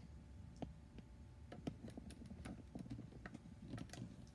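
Faint, scattered light clicks and taps of handling noise, about a dozen irregular ticks over a low background hum.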